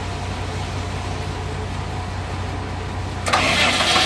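A low engine hum, then about three seconds in a new electric starter motor suddenly begins cranking a wheel loader's diesel engine, loud and continuing.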